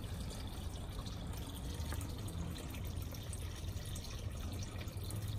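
Steady trickle of running water, with a low hum underneath.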